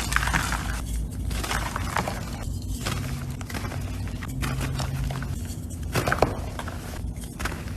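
Gym chalk being squeezed and crushed by hand: a steady run of dry crackling and crunching, with sharper snaps about two and six seconds in.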